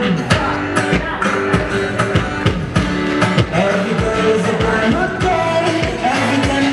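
A song plays, a voice singing over a steady drum beat.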